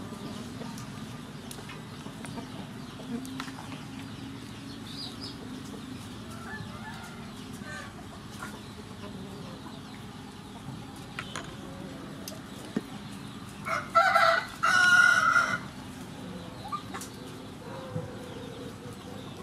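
A rooster crows once, loudly, about two-thirds of the way in, the call lasting under two seconds. Chickens cluck faintly earlier on.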